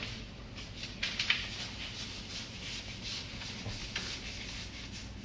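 Light handling noises: scattered soft clicks and rustles, with a short cluster of them about a second in.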